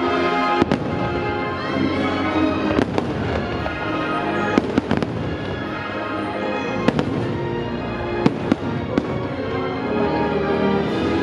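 Aerial fireworks shells bursting with about ten sharp bangs scattered through, over continuous show music.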